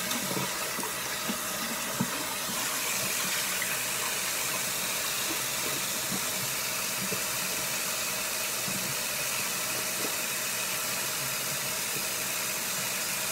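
Bathroom faucet running steadily into the sink, with a few light splashes and knocks in the first couple of seconds.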